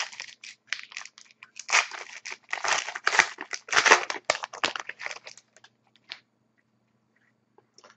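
Wrapper of a 2011-12 Panini Contenders hockey card pack being torn open and crinkled by hand: a run of crackling crinkles lasting about five seconds.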